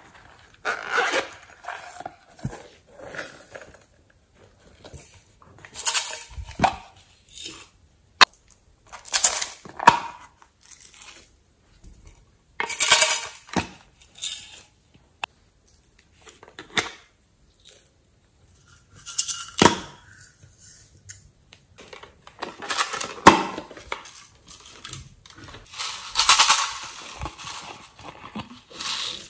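Small plastic containers being handled, opened and set down, and glitter and sequins tipped out of a small clear plastic cup onto slime. This comes as a string of separate rustling, clattering bursts a few seconds apart, with a few sharp plastic clicks.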